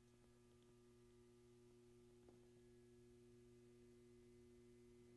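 Near silence: room tone with a faint steady hum and one faint tick about two seconds in.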